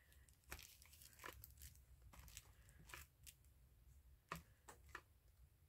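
A scatter of faint, soft taps and paper rustles: an ink pad being dabbed onto coffee-dyed paper.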